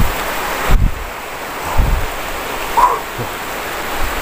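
Heavy rain falling, a steady hiss, with four short low thumps on the microphone.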